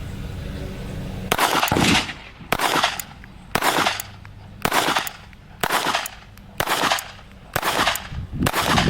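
Beretta Bobcat .22 LR pistol firing a string of about eight shots, roughly one a second, each with a short echo. The CCI Blazer rounds feed and cycle without a malfunction.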